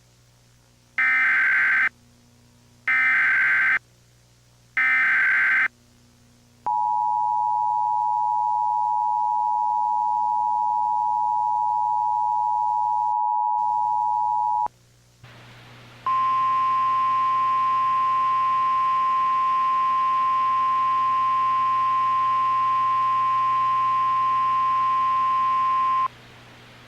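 Emergency Alert System header: three short bursts of buzzing SAME digital data, then the two-tone EAS attention signal held steady for about eight seconds, then, after a brief pause, the single-tone NOAA Weather Radio warning alarm held for about ten seconds, announcing a National Weather Service warning.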